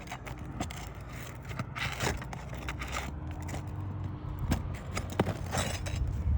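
Scraping and scattered sharp clicks of work on asphalt roof shingles, lifted to get at the nails holding them, over a steady low rumble.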